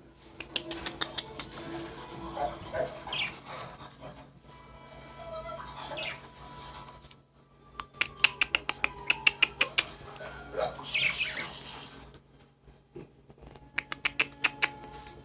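Pet birds calling with squawks and short chirps, broken by runs of rapid sharp clicks, about eight a second, around the middle and near the end.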